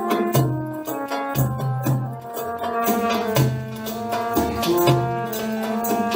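Live Arabic band music: a keyboard and qanun melody over hand drums, a cajón and a darbuka, keeping a steady beat with deep bass strokes.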